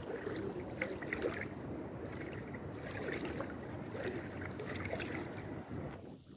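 Steady wind noise on the microphone with floodwater sloshing.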